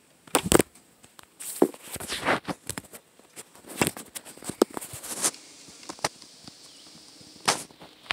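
Handling noise from a miniature telescope held against a phone: irregular clicks, knocks and rustles as the telescope and fingers rub and tap against the phone near its microphone.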